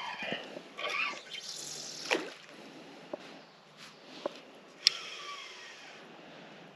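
Shallow river water trickling, with several sharp clicks from hands working a fishing rod and reel, and a few short bird chirps.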